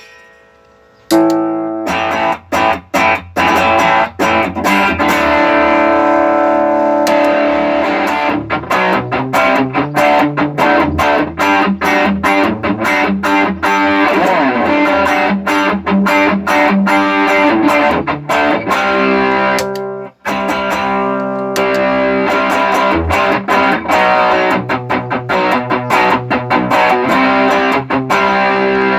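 Electric guitar played through a loop switcher and effects pedals: continuous riffs and chords that begin about a second in, with a brief stop about twenty seconds in.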